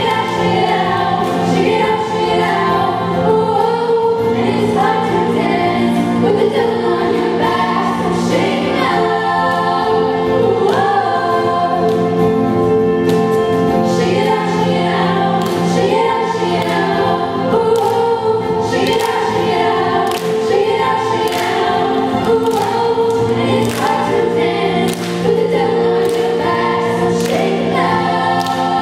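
Female vocal ensemble singing in layered harmony, backed by a band with guitars and keyboard, with sharp percussive hits marking a beat.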